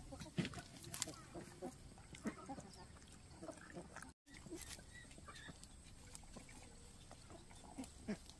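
A dog sniffing and nibbling at the leaves of a bush: faint, scattered short clicks and snuffles.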